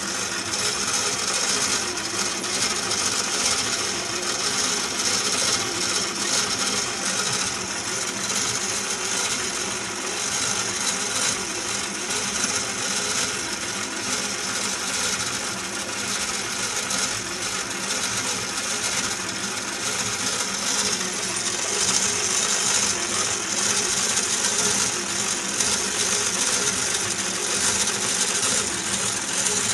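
Merkur metal construction-set model of a single-cylinder diesel engine running, its steel rocker arms, valve springs, pushrods and gears making a continuous rapid metallic clatter that stays steady throughout.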